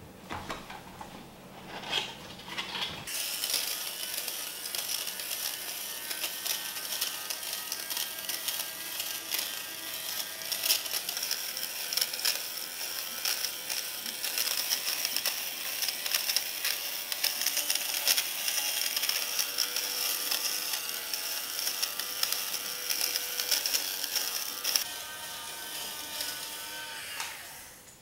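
Handheld battery fabric shaver (lint remover) running over a cushion cover. Its small motor whines steadily, with a scratchy ticking as the blades cut pills from the fabric. It starts about three seconds in and winds down near the end.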